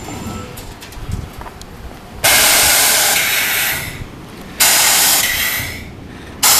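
Bottom-dump trailer truck rumbling low, then three long blasts of air hiss, each a second and a half or so, starting about two seconds in, the second one fading out.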